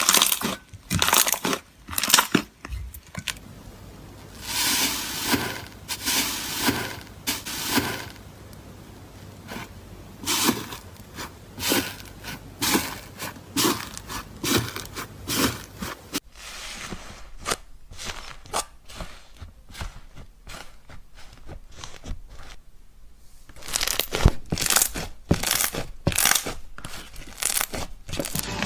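Slime being squeezed, stretched and pressed by hand: irregular runs of short sticky clicks and pops and longer crackling stretches, quieter for several seconds past the middle, then busy again near the end.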